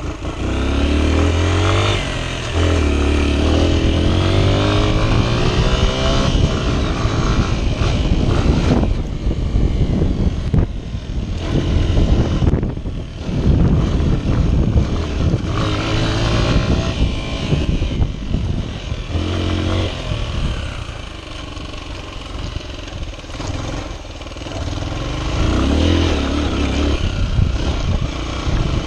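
Honda XR 125's single-cylinder four-stroke engine being ridden hard off-road, the pitch climbing through each gear and dropping back again and again, with wind noise and knocks from the rough ground.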